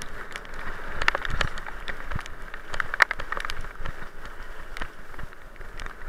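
Bicycle rolling fast down a dirt forest track: tyres crunching over the gravel with a stream of rattles and knocks over the bumps, a sharp knock about three seconds in, and wind hiss.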